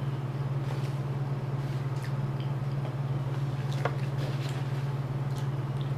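Quiet eating sounds: a few faint, scattered clicks from chewing and a utensil picking at food in a foam takeout box, over a steady low hum.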